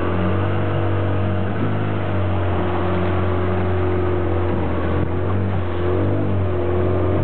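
Outboard motor of a small boat running steadily under way, a constant hum over a rushing hiss of water and wind.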